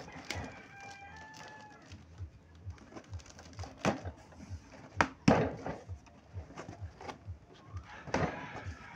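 Packing tape being peeled off a cardboard box and the flaps pulled open: a few sharp rips and crackles, the loudest about five seconds in. A bird calls in the background near the start and again at the end.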